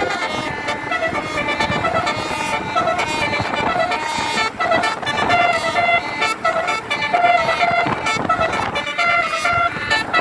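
Telolet bus horn, a multi-tone musical horn, playing many short repeated notes in a tune.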